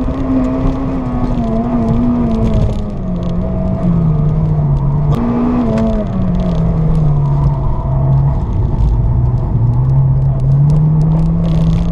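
Honda Civic Type R engine heard from inside the cabin under hard track driving. The revs sink over the first few seconds, jump back up briefly about five seconds in, drop low, then climb steadily toward the end, over constant road and tyre noise.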